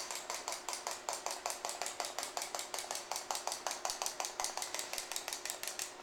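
Clockwork of a wind-up toy chicken running, a rapid even clicking at about seven clicks a second that stops just before the end.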